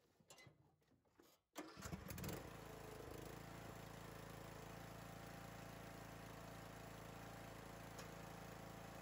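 A few light clicks, then a Troy-Bilt riding mower's engine cranks and catches about a second and a half in, settling into a steady run.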